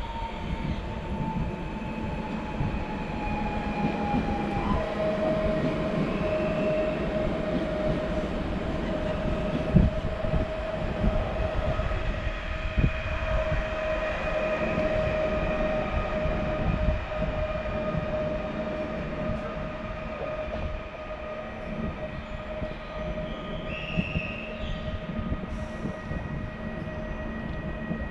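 Koleje Śląskie PESA Elf electric multiple unit running past at low speed: a steady electric whine from its traction equipment, gliding down in pitch over the first few seconds and then holding steady, over a continuous rumble of wheels on rails with a few sharp clicks.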